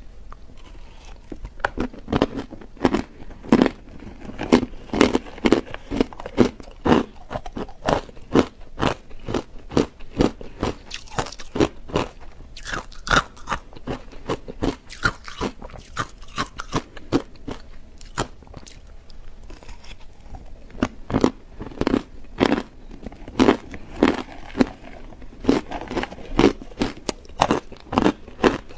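Hard ice chunks coated in matcha powder crunched and chewed close to the microphone: a steady run of sharp, irregular cracks, several a second, as the ice breaks between the teeth.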